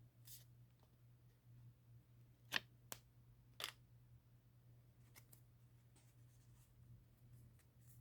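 Near silence over a faint steady low hum, broken by three brief light clicks or taps close together, about two and a half to three and a half seconds in.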